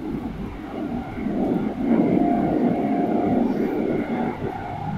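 Keikyu 1500 series electric train running at speed, heard from inside the passenger car: a steady rumble of wheels on rails that grows louder about two seconds in, with a brief steady tone riding over it.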